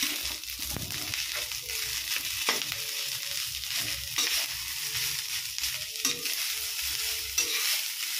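Garlic fried rice (sinangag) sizzling in a metal wok while a metal spatula stirs and tosses it, with repeated short scrapes and knocks of the spatula against the pan.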